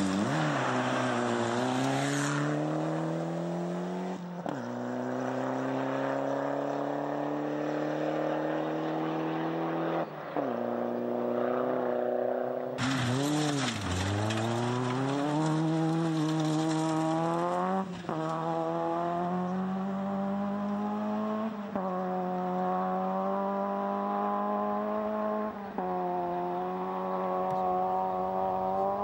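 Rally car engines accelerating hard through the gears, one car after another. The pitch climbs steadily and drops sharply at each upshift, about every four seconds.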